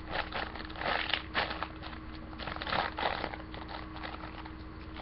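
Plastic packaging of a squishy crinkling and rustling as it is handled, in short irregular bursts, over a steady low electrical hum.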